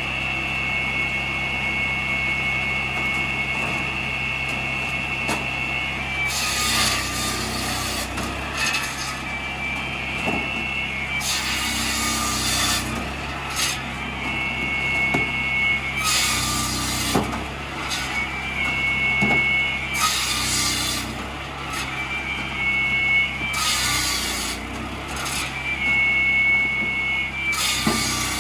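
Petrol-engined log saw with a 700 mm circular blade, its 13 hp engine running steadily and the blade whining. Logs are cut through about every four seconds, six cuts in all: each one is a burst of loud rasping sawing, and the whine drops in pitch under load. Cut rounds knock into a steel wheelbarrow between cuts.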